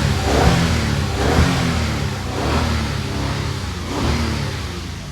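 Toyota Avalon's V6 engine revved up and down in several quick blips. After a misfire repair it seems to run cleanly now, with no misfire.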